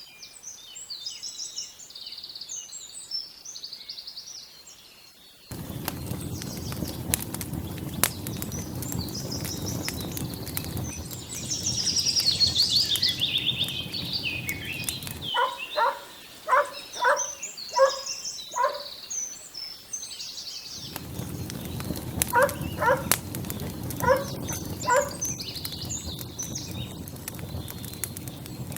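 Small birds chirping and singing throughout, over a steady outdoor background noise that cuts in and out abruptly. Twice there is a run of short, evenly spaced calls, about two a second, from a farmyard fowl.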